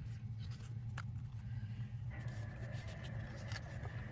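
Paper sticker sheets being handled: faint rustling with a sharp tick about a second in, over a steady low hum.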